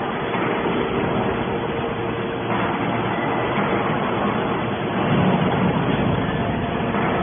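Scrap-metal baler machinery running steadily: a dense mechanical noise with a faint steady hum, growing a little louder about five seconds in.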